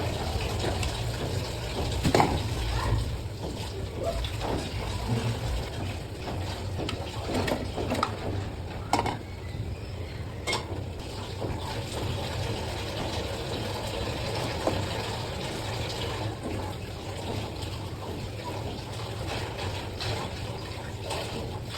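Water running and splashing over a steady low hum, with scattered knocks and clinks, the loudest about two seconds in.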